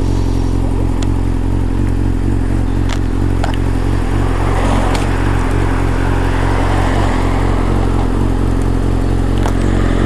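Honda CBR600F's inline-four engine idling steadily through an aftermarket Scorpion Serket exhaust, with a few light clicks over it.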